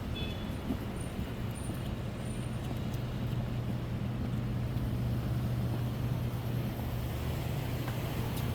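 Street traffic: a vehicle engine running with a steady low hum over road noise.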